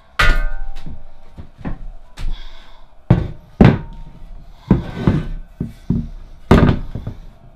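Heavy knocks and thunks as the cast-iron base of a pillar drill is set down and shifted about on a workbench, about half a dozen separate impacts. The first, just after the start, rings briefly like struck metal.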